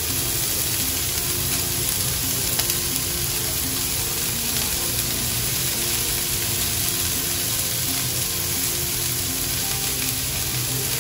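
Diced mixed vegetables (peas, sweet corn, carrots and capsicum) sizzling steadily as they sauté in a ceramic-coated wok.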